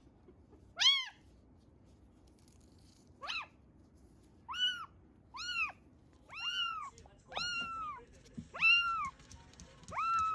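A young kitten, a few weeks old, meowing again and again: about eight high-pitched meows, the first few short and rising, the later ones longer, with the pitch rising and then falling.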